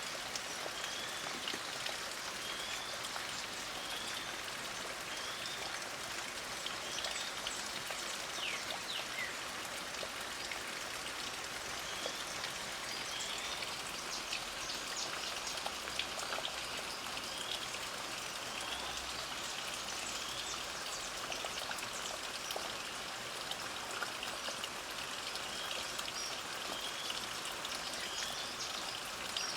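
Light rain falling steadily, with scattered drips, while a bird repeats a short high chirp about once a second, pausing a few times.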